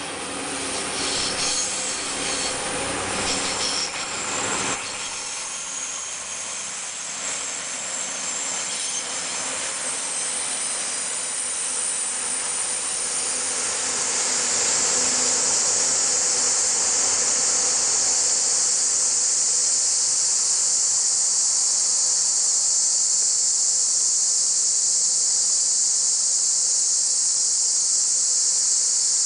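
A TRA DR1000-series diesel railcar train passes, its diesel engines and wheels on the rails loudest in the first few seconds, with the low engine rumble dropping away suddenly about five seconds in and the train's sound then fading as it moves off. From about halfway a steady high-pitched buzz of cicadas takes over and stays loud.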